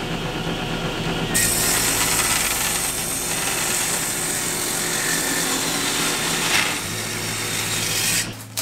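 Table saw running and ripping narrow strips of hardwood fed through with a push stick, the blade cutting steadily. It gets louder and sharper about a second in and stops just before the end.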